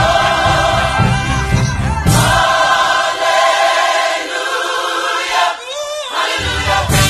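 Background music with choir-like sung vocals. The bass and beat drop out about two and a half seconds in, and come back near the end after a short wavering sweep.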